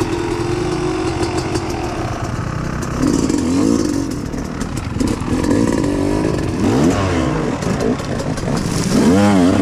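Dirt bike engine idling, then revved in several short throttle blips that rise and fall in pitch, the strongest near the end.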